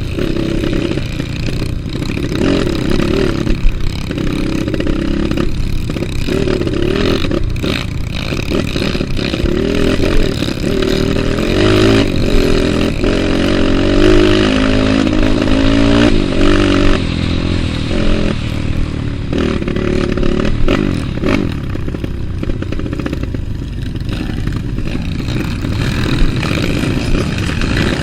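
Trail motorcycle engine running and revving up and down, with rattling and clatter from the bike.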